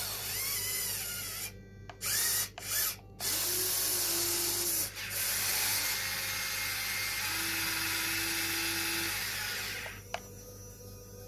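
Small electric motors of an RC excavator whining under load, stopping and starting several times in quick succession before running steadily, then dropping away near the end.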